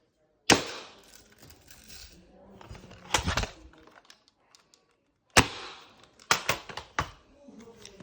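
Airsoft guns being fired: a sharp crack about half a second in, another around three seconds, then one more and a quick run of several shots in the second half.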